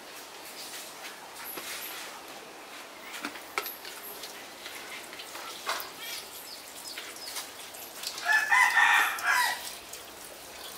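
A rooster crows once, about eight seconds in, the crow lasting over a second. Scattered light clicks and knocks sound around it.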